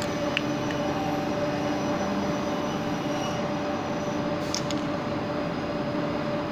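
Steady mechanical drone with a constant hum, and a couple of faint short clicks.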